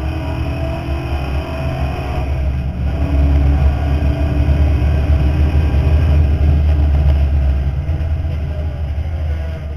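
V8 race car engine heard from inside the cockpit, pulling hard on a straight under full throttle. It gets louder about three seconds in and eases off near the end.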